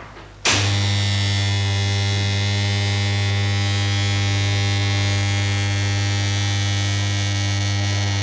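Linear induction motor track of electromagnet coils switched on with a click about half a second in, then a loud, steady, deep mains hum with many overtones as the coils are energised to float and drive a model vehicle along it.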